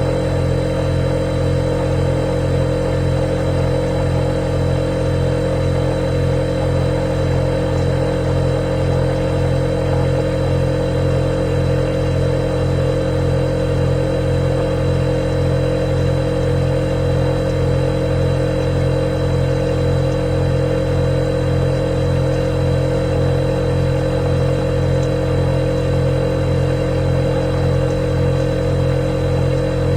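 Refrigerator running with a steady hum, a thin high-pitched whine over it.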